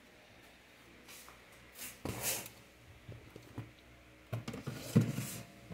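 Plastic food containers being handled and set into a freezer compartment: a brief rustle about two seconds in, then a few dull knocks of plastic against the shelf and frozen ice packs near the end.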